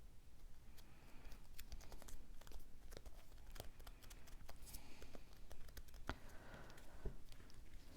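Cardstock pieces being handled on a tabletop: soft paper rustling with scattered small taps and clicks.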